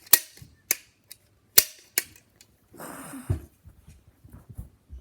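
Sharp clicks from a toy being fired, four of them in the first two seconds. About three seconds in comes a short rushing noise ending in a low thump, followed by a few soft knocks.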